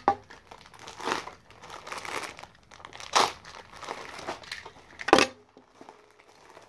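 Plastic packaging crinkling in several short bursts as it is handled, loudest at the start and about five seconds in.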